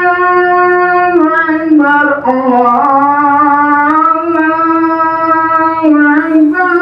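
Background music: a single sung or instrumental melody line holding long notes with slow slides between them.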